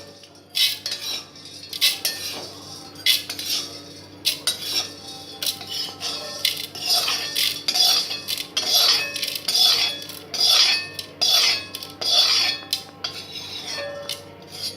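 Metal spoon scraping and clinking against a kadai and mixer jar as roasted dal with chilli powder, asafoetida and salt is transferred for grinding: repeated irregular strokes about two a second, over a low steady hum.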